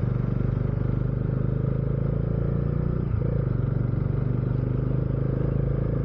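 Motorcycle engine running steadily while riding, with a brief dip in the engine note a little past halfway.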